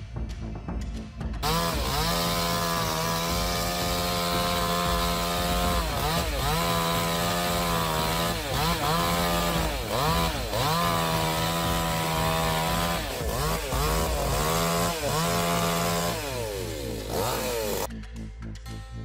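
Chainsaw running at high revs while cutting wood, its engine note dipping again and again as the chain bogs down under load and then picking back up. Near the end the revs fall away and the sound cuts off suddenly.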